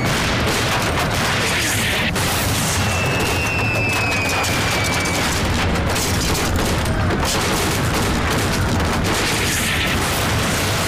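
Bombs exploding one after another amid gunfire in an air-raid battle, with a falling bomb's descending whistle from about three to five seconds in.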